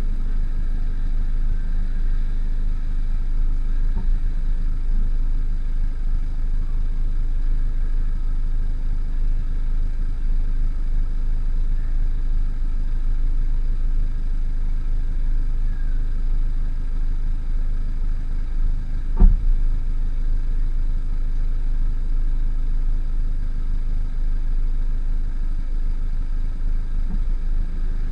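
Lotus sports car with a Milltek exhaust idling at the tailpipes: a steady low rumble, with a single brief thump about two-thirds of the way through.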